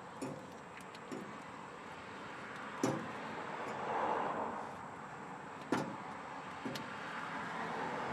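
Work on a truck's starter connections: about five sharp clicks and knocks of tools and parts, the strongest just before 3 s and near 6 s, over a background of noise that swells and fades around the middle.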